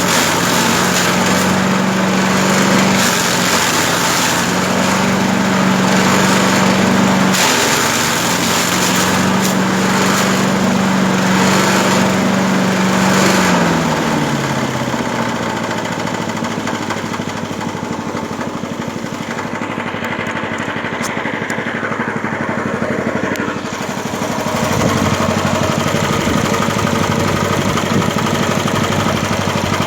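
Engine-driven grass chopper running steadily with a loud hum and a dense rushing noise above it. About 13 seconds in, the hum slides down in pitch and the machine runs quieter, then it picks up again near 25 seconds.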